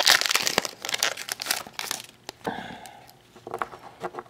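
Foil trading-card pack wrapper crinkling as it is handled and torn open, loud for about two seconds, then dropping to a few soft clicks and rustles of the cards.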